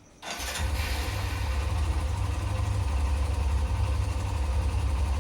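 Hero Xtreme 125R motorcycle's single-cylinder engine starting up about a quarter second in and then idling steadily. The owner suspects the engine makes more noise than it should.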